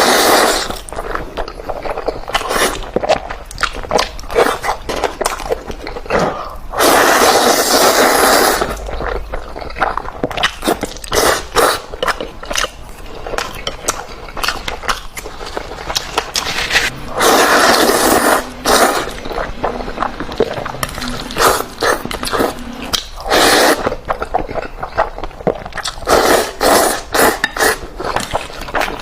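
Close-miked eating of Indomie instant noodles with chicken: rapid wet chewing and biting clicks, broken by a few longer noisy stretches of a second or two, the longest about seven and seventeen seconds in.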